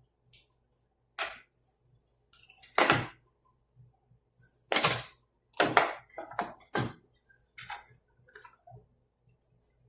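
Irregular sharp clicks, knocks and clatters of hard objects being handled, a dozen or so at uneven intervals, the loudest a few seconds in, over a faint steady hum.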